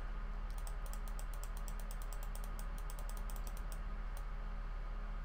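Computer keyboard keys clicking in a quick run for about three seconds, then one more click, as a number is typed in. A steady low electrical hum runs underneath.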